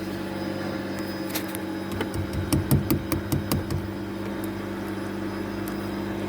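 Steady hum of the Nissan Wingroad's electric fuel pump running, now that its burnt, high-resistance connector has been repaired. A series of light clicks and knocks sounds about two to four seconds in.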